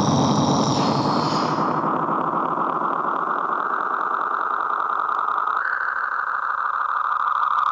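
Loud, harsh, steady noise drone from an experimental tape collage. A buzzing hiss carries a droning band that steps up slightly in pitch about five and a half seconds in, while a higher whistling layer fades out within the first two seconds.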